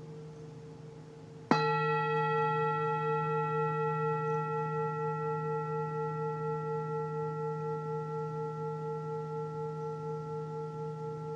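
A singing bowl struck once about a second and a half in, then ringing on with a strong low tone and several higher overtones, wavering in a slow pulse as it gradually fades. Before the strike, the faint ring of an earlier stroke is still dying away.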